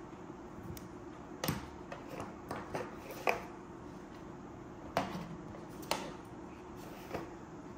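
Hands handling a white cardboard box and its packed contents: a scatter of short light knocks, taps and rustles, over a steady low hum.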